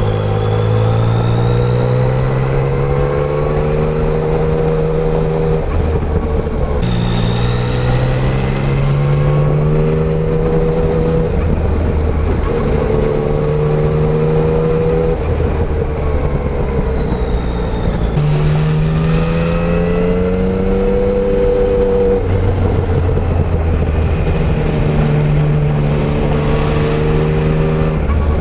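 Yamaha Tracer 900's 847 cc inline-triple engine, stock exhaust, pulling under load: its pitch climbs steadily in several runs of a few seconds each, with a sudden drop in pitch between runs as the gears are changed or the throttle is rolled off.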